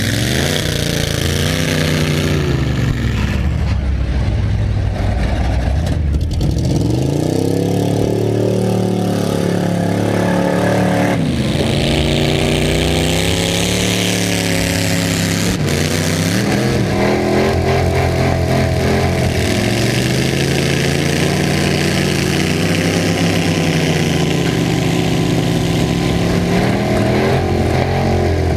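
Demolition derby cars' engines revving up and down, loud and continuous, with the pitch rising and falling over and over as the cars accelerate and back off. A single sharp knock cuts through about sixteen seconds in.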